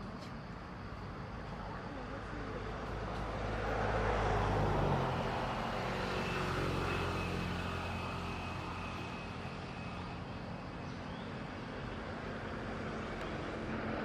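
Steady engine hum of a motor vehicle, growing louder to a peak about five seconds in and then easing back.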